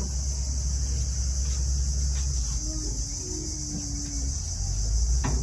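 Steady, high-pitched drone of an insect chorus, with a low rumble beneath it. A sharp click at the start and a light knock near the end.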